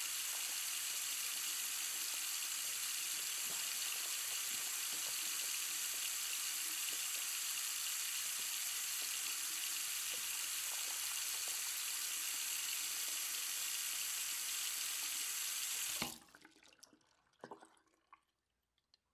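Tap water running steadily into a sink, shut off about sixteen seconds in, followed by a couple of faint knocks and then silence.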